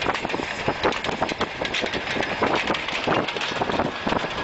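Diesel locomotive running as it pushes a wedge snowplow along snow-covered track, heard as a steady, dense, crackly noise.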